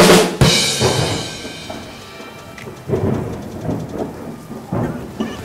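Intro sound effect: a loud thunder-like crash with a second hit just after it, dying away over about two seconds, followed by a softer rhythmic pulsing.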